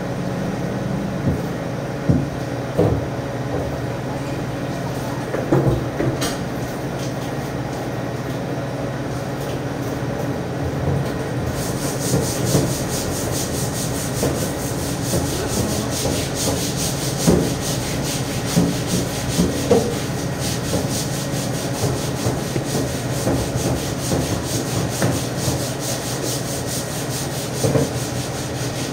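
Butchering work at a steel table: scattered knocks and scrapes of a knife and meat being handled, over a steady machine hum. About twelve seconds in, a high hiss with a fast flutter joins and carries on.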